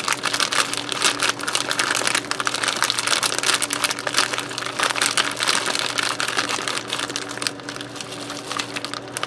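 Plastic bag of cubed ham crinkling as it is squeezed and shaken to tip the ham into a pot of soup, easing off near the end. A faint steady low hum runs underneath.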